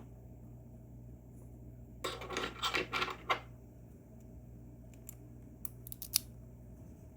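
Small metal lock parts and tools handled on a work surface: a rattling clatter of metal on metal lasting about a second and a half, then a few short sharp clicks.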